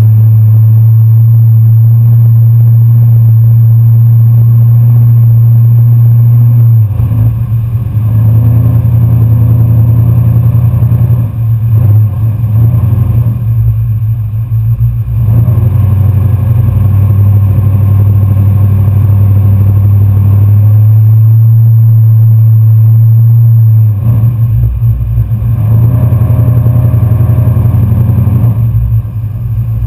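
Pickup truck engine running loud and steady under load while driving through shallow swamp water. About seven seconds in, and again just before the last six seconds, it turns rougher and uneven, with water splashing.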